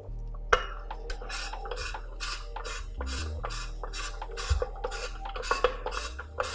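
Threaded insert of a billet rotary engine plate being unscrewed with the locking tool: a steady run of metallic clicks and scraping, about three a second.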